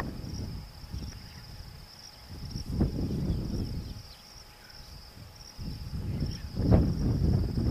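A steady, high-pitched insect chirring, with bursts of low rumbling noise about three seconds in and near the end.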